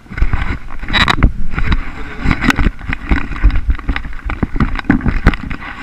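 Camera handling noise: the microphone is jostled and rubbed against clothing, giving a loud, irregular run of knocks and scrapes over a low rumble.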